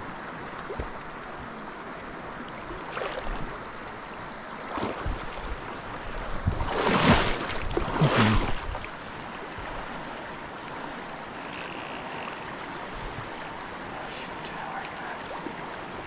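River current flowing steadily over rocks, with two louder rushes of noise about halfway through, a second apart.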